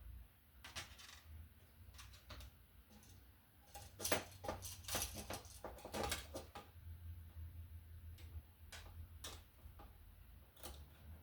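Light clicks and scraping of a screwdriver, wires and a receptacle being handled at an electrical box, with a busy run of clicks about four to six and a half seconds in.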